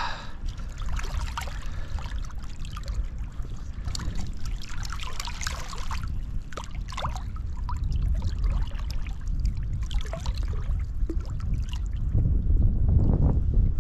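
Stream water trickling and splashing close by, in irregular little splashes. Under it, a low wind rumble on the microphone grows louder near the end.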